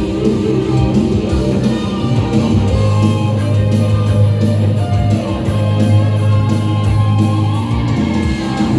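Live rock band playing: electric guitar lines over a low bass note held from about three seconds in until near the end.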